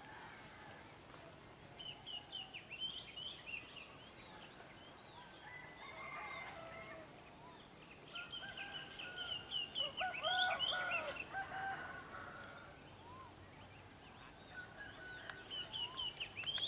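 Birds calling: bouts of quick, high chattering calls about two seconds in, again from about eight to twelve seconds, and near the end, with some lower calls in between.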